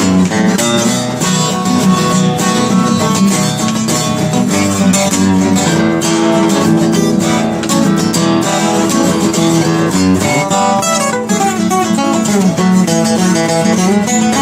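Blues guitar playing an instrumental passage with plucked and strummed notes over a low bass line. About ten seconds in the low notes drop out and the playing thins to higher picked runs.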